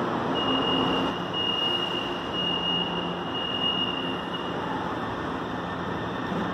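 São Paulo Metrô train moving along a station platform, with steady running noise. A single steady high-pitched tone sounds for about four seconds, starting just after the beginning.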